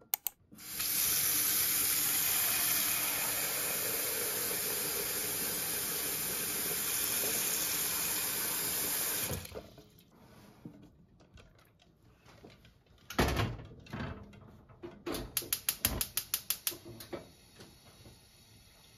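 Kitchen tap running into a pot of eggs in the sink, a steady rush that stops after about nine seconds. Later a single knock as the pot is set on the gas hob, then a gas burner igniter clicking rapidly for about two seconds.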